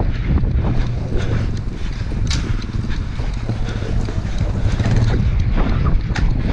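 Wind buffeting the microphone as a heavy rumble, with scattered knocks and rustles; the sharpest knock comes a little after two seconds in.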